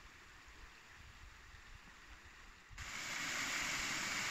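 Faint, quiet background with low rumbles, then, near the end, an abrupt switch to a steady, much louder rush of river water running over shallows.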